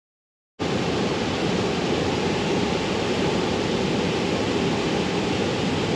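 Steady rush of a waterfall, cutting in suddenly about half a second in.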